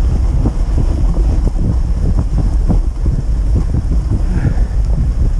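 Wind buffeting the microphone of a camera on a moving dog sled, a loud steady rumble, with frequent small irregular knocks and scrapes as the sled runs over the packed snow trail.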